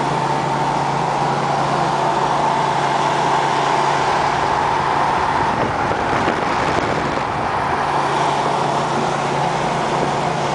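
Car engine droning steadily with road noise, heard from inside the cabin while cruising at highway speed. The low drone eases a little for a few seconds midway, then returns.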